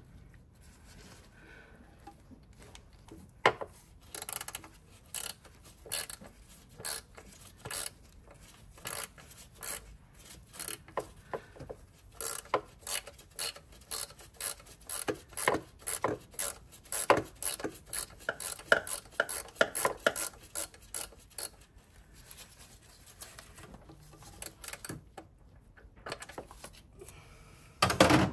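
Metal hand tools clicking and clinking on a car engine: a long run of short sharp clicks, about one to two a second, then a louder clatter near the end.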